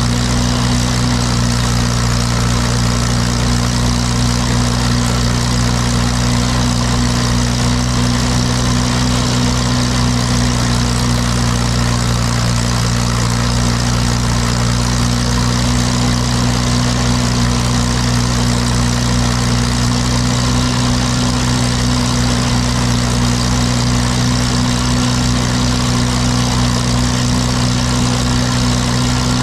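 Case 830 tractor engine running at a steady, unchanging speed, driving a Gehl forage blower filling the silo.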